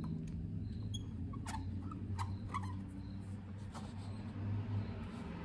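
Small clicks and faint squeaks of a screwdriver threading the float valve seat into the body of an Evinrude Big Twin 40 outboard carburetor, over a steady low hum.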